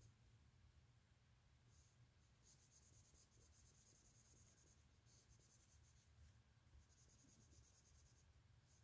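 Faint dry-erase marker strokes rubbing on a whiteboard, coming in several short spells of quick colouring-in strokes.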